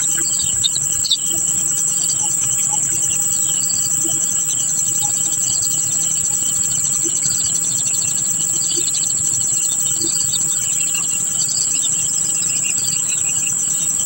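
Steady high-pitched insect drone, with short bird chirps scattered throughout.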